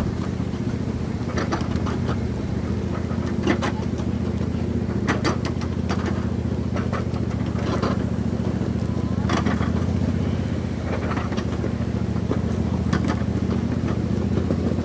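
Miniature ride-on train running along its track: a steady low drive hum with irregular clicks and clacks from the moving cars.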